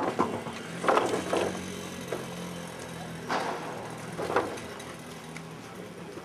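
A vehicle engine running steadily, with several loud sudden clatters over it, like bamboo poles being dropped, in the first four and a half seconds.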